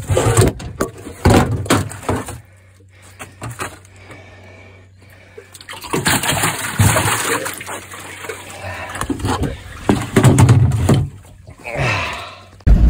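Knocks and bumps on a metal boat's floor, then water splashing and sloshing as a flathead catfish is put into the boat's live well.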